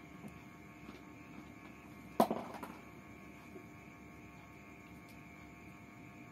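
Steady low electrical hum, broken about two seconds in by a single sharp knock and a brief clattering rattle that quickly dies away.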